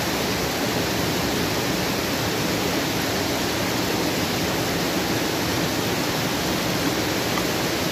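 Steady rushing of a waterfall beside the camp, with the hiss of water poured onto campfire embers to put the fire out.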